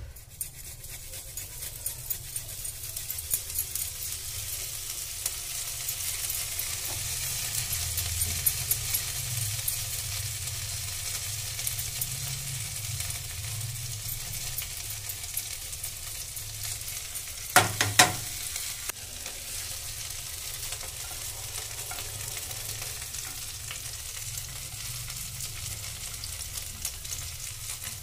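Mustard oil sizzling and crackling in a kadhai as green chillies and chopped vegetables fry in it. The sizzle builds over the first few seconds and then holds steady. Two sharp knocks come a little past halfway and are the loudest sounds.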